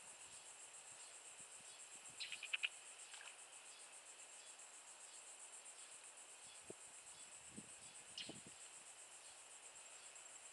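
Faint, steady high-pitched trilling of insects such as crickets, near the edge of silence. A few short, higher chirps stand out about two seconds in, and a few soft low knocks come later.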